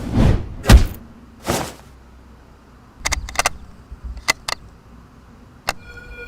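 Dubbed-in fight sound effects: three quick swooshes in the first two seconds, then a series of short sharp clicks and knocks, ending with a brief ringing tone.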